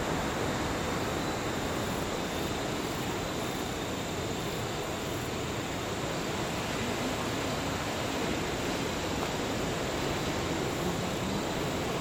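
Rough surf breaking along a beach, a steady even rush of noise.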